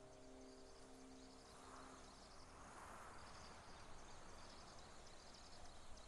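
Near silence with faint insects trilling in repeated pulses as forest background.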